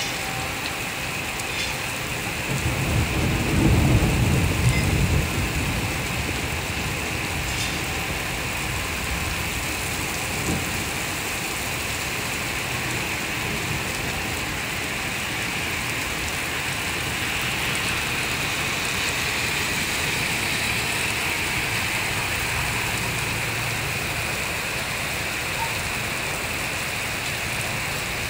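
Heavy rain falling steadily. A roll of thunder rumbles low for a few seconds, starting about two and a half seconds in.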